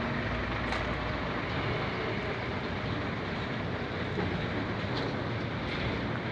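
Diesel engine of an ALS intercity bus running steadily close by, a low, even rumble.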